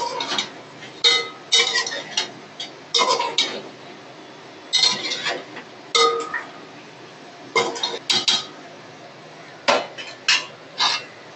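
Metal ladle scraping and clinking against a metal cooking pot while fish heads are turned over in thick masala: irregular strikes every second or so, some ringing briefly.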